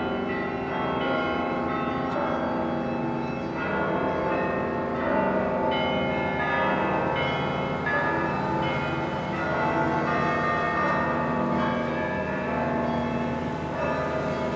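Russian Orthodox church bells ringing a full peal: many bells, low and high, struck over and over so that their tones overlap in a continuous ringing with no pauses.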